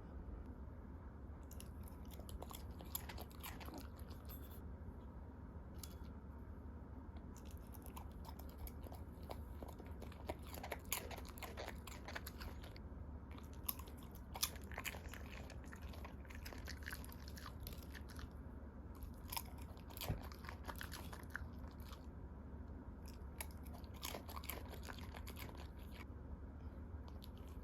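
A Jindo dog chewing and biting its food, close to the microphone: sharp clicking chomps in irregular runs with short pauses between, over a steady low hum.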